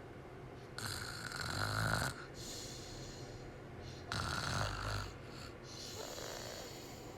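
A sleeping person snoring: two loud snores about three seconds apart, each lasting about a second, with a fainter one near the end.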